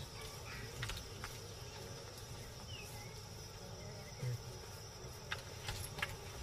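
Faint natural ambience: a steady high insect buzz that stops about five seconds in, with a few faint scattered clicks.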